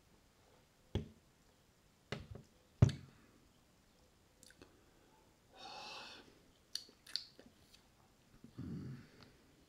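A man drinking beer from a glass: a few gulps about one, two and three seconds in, the third the loudest, then a breath out and small lip smacks as he tastes it, and a short low sound near the end.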